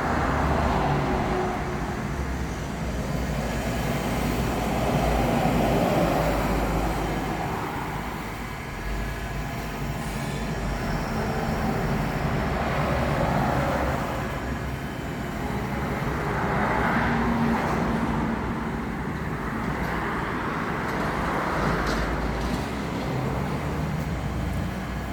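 Roasting and stirring kettle machine running: a steady low motor hum, with a rustling, hissing noise that swells and fades about every four seconds.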